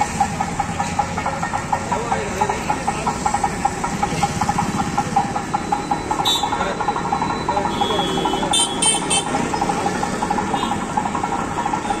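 Traffic at a busy road junction: vehicle engines running steadily, with indistinct voices of people in the background and a few short sharp clicks about three-quarters of the way through.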